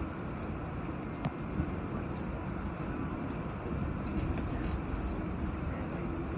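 R46 subway car running on elevated track, heard from inside: a steady rumble of wheels on rail, with two sharp clicks about a second and a half in.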